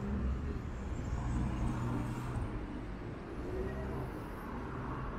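Street traffic: cars driving past with a steady low engine hum and tyre noise.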